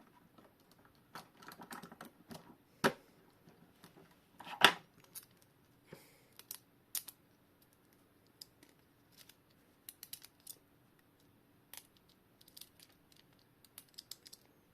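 Irregular small clicks and taps of metal clock-movement parts and tools being handled during reassembly of a mechanical wall clock, with a sharper knock about three seconds in and the loudest one a little later.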